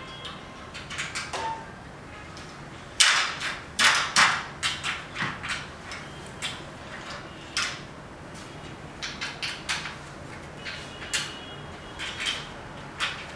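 Aluminium projection-screen frame sections being handled and joined at a corner: irregular metallic clicks, knocks and scraping, busiest about three to five seconds in.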